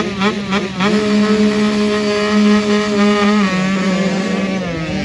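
Two-stroke motocross bike engine: pulsing revs for about the first second, then held steady at high revs, dropping a little in pitch about three and a half seconds in.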